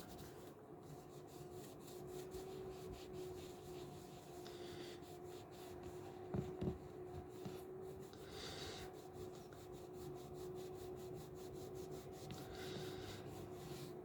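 Makeup being applied: faint, quick, evenly repeated rubbing strokes, with a steady low hum behind them and a couple of light knocks about halfway through.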